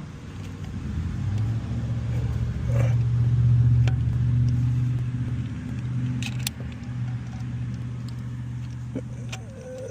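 A motor vehicle's engine running, a steady low hum that swells to its loudest a few seconds in and then eases off, with a few light clicks.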